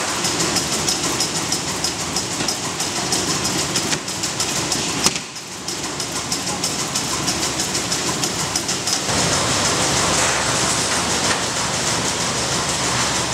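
Workshop machinery on a lighter-valve assembly line, running with a dense, fast rattling and clicking. There is one sharp click about five seconds in.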